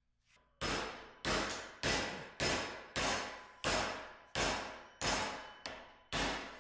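Hand hammer striking a quarter-inch steel fillet-weld break-test piece clamped in a bench vise, bending it over to break the weld. About ten steady blows, starting about half a second in, nearly two a second, each with a short metallic ring.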